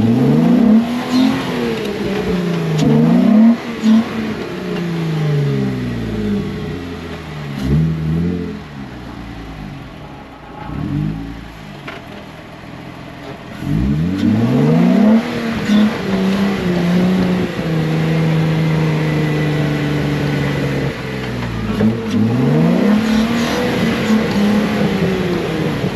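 Off-road 4x4's engine revving hard in repeated bursts as it tries to get over a stump, the pitch climbing and falling again and again, with a longer steady high-rev stretch in the second half.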